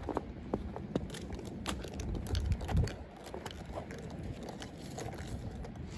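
Car driving on a snow-covered road, heard from inside the cabin: a steady low road rumble with scattered light clicks and taps throughout.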